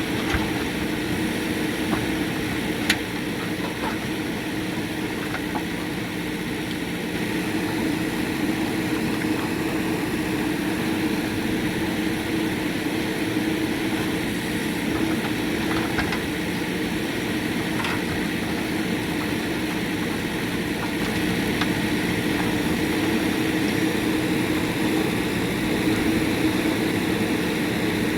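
JCB 3DX backhoe loader's diesel engine running steadily, with a few brief knocks, the sharpest about three seconds in.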